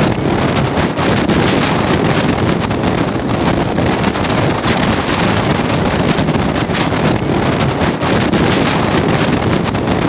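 Strong gusty wind blowing over the microphone: loud, continuous wind noise that rises and dips with the gusts.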